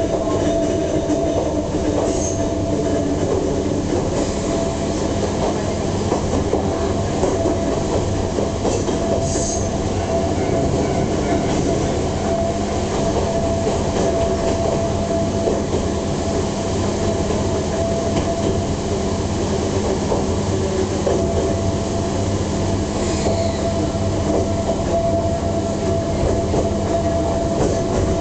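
Ohmi Railway MoHa 220-series electric railcar running steadily, heard from inside the car: a continuous rumble with a steady whine from its nose-suspended (tsurikake) traction motors and gearing, and wheels clicking over the rail joints.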